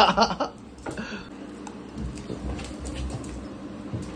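A brief voice at the very start, then dogs' claws and paws lightly ticking and pattering on a tile floor as two big dogs, a Rottweiler and a Doberman, move about after a thrown ball.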